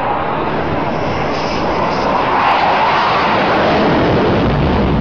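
Military jet flying past: a loud, continuous rushing engine noise that swells about halfway through, with a deep rumble building near the end.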